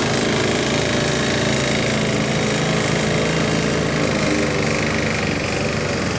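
Old riding lawnmower's small petrol engine running steadily, with a slight dip in pitch about four seconds in.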